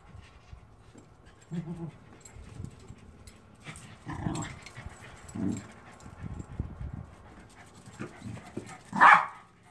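Corgis whining and giving short yips, a few separate calls with the loudest, highest one near the end.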